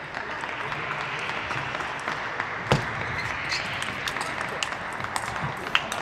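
Spectators applauding in an arena as a steady patter, with a single sharp knock a little before halfway and a few fainter ticks after it.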